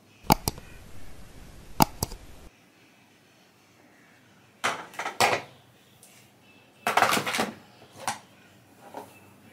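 Scissors snipping through wig hair during a haircut: irregular sharp snips and clicks, some single and some in quick clusters of several cuts.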